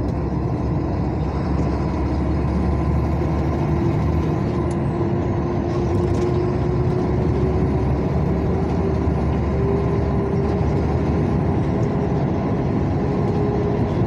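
Vehicle driving along a highway: steady engine and road noise heard from inside the vehicle, with the engine note slowly rising in pitch.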